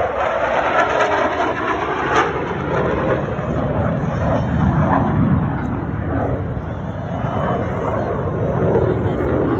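F-16 fighter jet engine noise: a loud, continuous rushing sound.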